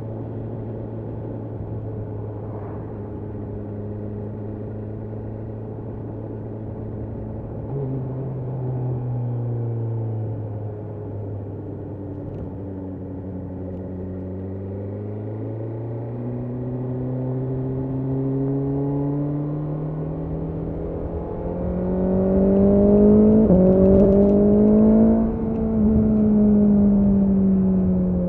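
BMW S1000R's inline-four engine under way on a ride: running steadily, then dropping in pitch as it eases off, then pulling up through the revs to its loudest about two-thirds in, with a brief dip at a gear change, and easing off again near the end.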